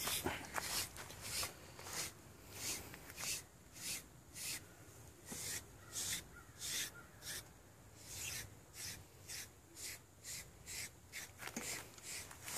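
SleekEZ deshedding blade raking through a dog's coat: repeated short, raspy brushing strokes, about two a second, pulling out loose shedding hair.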